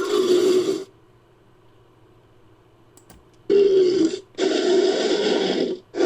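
Designed Concavenator dinosaur vocalizations: one short rasping growl-call, then after a pause three more calls in quick succession, each with a low pitched core under a harsh noisy texture.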